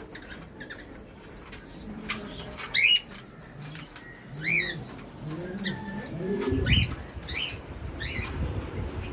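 Pigeons cooing in low, rising-and-falling coos among steady high chirping from other birds, with a burst of wing flapping about six and a half seconds in.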